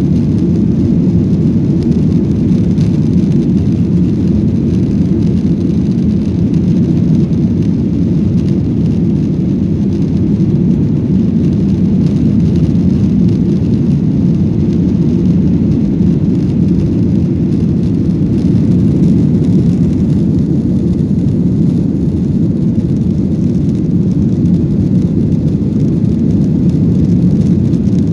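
Airliner taking off: a loud, steady low rumble of engine and airflow noise.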